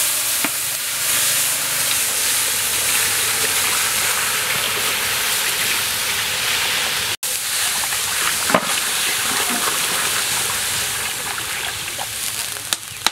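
A stream of water pouring into a large hot aluminium wok of browned pork, hissing and sizzling as it hits the hot metal and fat, with the steady rush of the falling water. The sound breaks off for an instant about seven seconds in.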